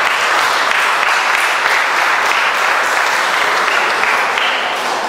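Audience applauding, a sustained round of hand-clapping that dies away near the end.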